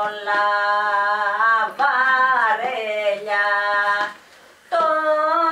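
A woman singing a Greek demotic folk song, with long held notes that waver and bend in ornaments. The voice breaks off for about half a second about four seconds in, then carries on.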